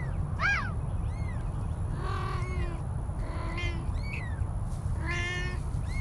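Newborn kittens mewing: about eight short, high-pitched cries, each rising and falling, a couple of them longer.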